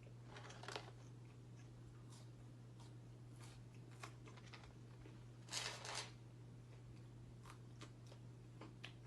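Faint rustling and crinkling of McDonald's paper food packaging in short bursts, loudest about five and a half seconds in, with a few small clicks between.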